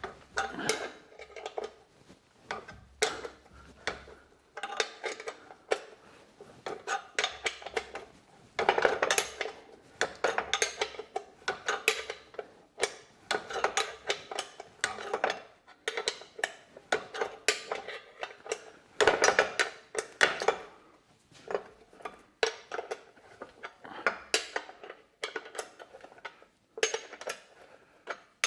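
Irregular metallic clicking and clinking of hand tools on the bolts and steel bracket of a work light, coming in clusters with short pauses.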